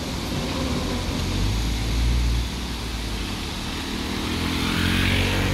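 Road vehicles pulling away over a railway level crossing as the barrier lifts: motor scooter and car engines, with the rumble swelling about two seconds in. Near the end a motorcycle engine comes in, rising in pitch as it accelerates.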